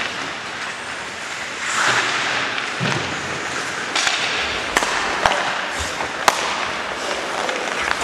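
Ice hockey play on the rink: skate blades scraping the ice under a steady hiss, a dull thud of players against the boards about three seconds in, then several sharp clacks of sticks and puck spread over the next few seconds.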